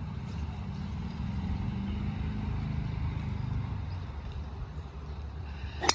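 Steady low outdoor rumble, then one sharp click just before the end.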